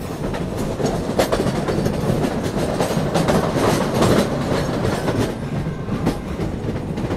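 Meter-gauge train running, its wheels clattering over the rail joints: a steady rumble with sharp, irregular clicks.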